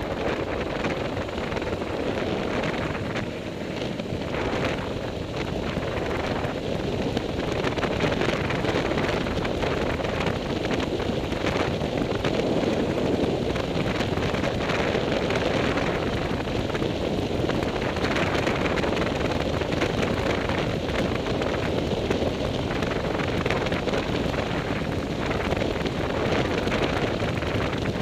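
Motorcycle riding on a dirt track: a steady rush of wind on the microphone with the engine running underneath.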